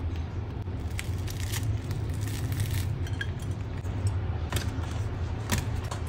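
Scattered light clicks, crackles and scrapes of hands handling baked pão de queijo rolls in a metal muffin tin, with a brief rustle about two and a half seconds in, over a steady low hum.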